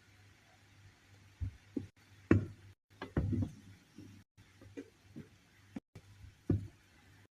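Scattered light knocks and clatter of objects being handled, over a low steady hum. The loudest knock comes about two seconds in, a quick run of them follows around three seconds, and another sounds near the end.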